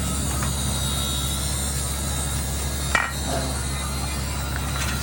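A steady low mechanical hum, with a single sharp knock about three seconds in.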